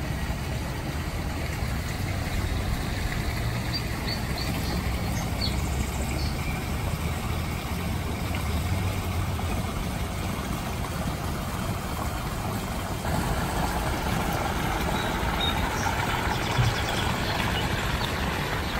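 Steady outdoor background noise: a low rumble under a wash of hiss, which grows brighter and a little louder about thirteen seconds in, with a few faint high chirps around four to six seconds in.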